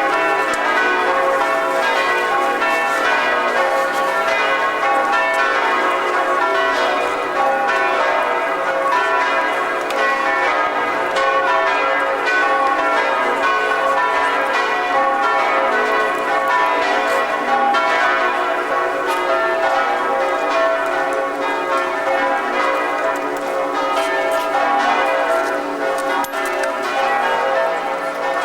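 Church bells pealing loudly, many bells struck in quick succession so that their ringing tones overlap in a continuous peal.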